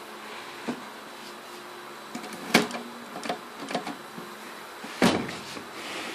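Erika manual typewriter being worked, its mechanism giving about half a dozen sharp clacks at irregular spacing, the loudest about halfway through and about five seconds in.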